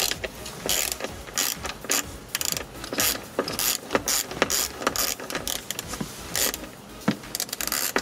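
Hand ratchet with a Torx 50 bit clicking in short runs of strokes with brief pauses between, backing out the seat belt's upper anchor bolt.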